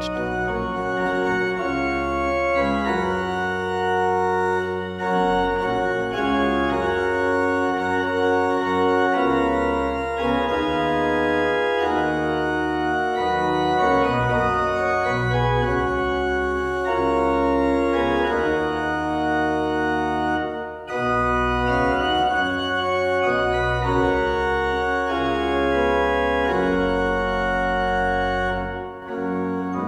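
Church organ playing full sustained chords over a moving bass line, the harmony changing every second or two, with a brief break about two-thirds of the way through.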